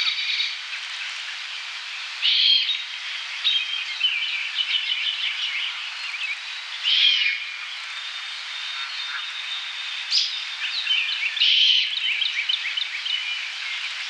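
Great horned owl fledgling giving a hoarse, hissing screech three times, about four to five seconds apart. This is the young owl's begging call. Songbirds chirp steadily throughout.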